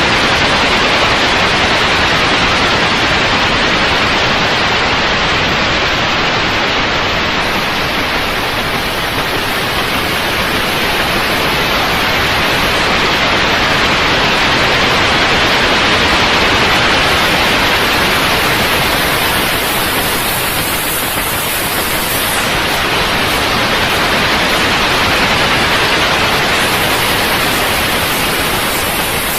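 Steady white-noise hiss of the kind played to soothe colicky babies, strongest in the upper middle range, swelling and easing slightly every several seconds.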